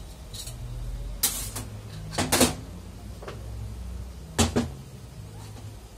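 Metal transmission parts, a clutch drum on its shaft, knocking and clanking against a steel workbench as they are handled and set down. There are three main clanks, the loudest just after two seconds in, over a steady low hum.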